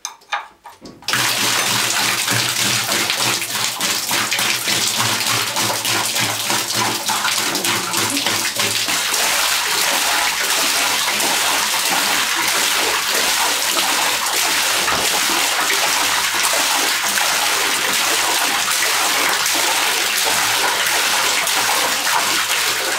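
Water gushing out from under the loosened heating-element flange of an electric storage water heater and splashing into a bathtub below: the water left in the tank draining out. It starts suddenly about a second in and pours steadily.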